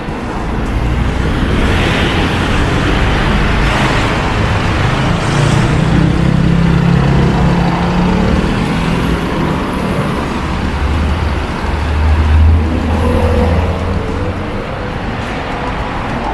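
Road traffic: motor vehicles passing close by with an engine rumble that swells twice as they go past.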